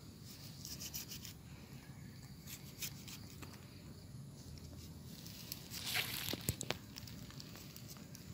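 A small knife scraping the pulp out of a halved grapefruit rind, in faint, irregular rasping strokes. A louder stretch of scraping and a couple of sharp clicks come about six seconds in.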